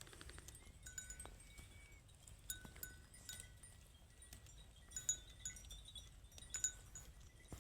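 Small metal bells clinking faintly several times, each ring short, with the clearest strikes about five seconds in and again a second and a half later.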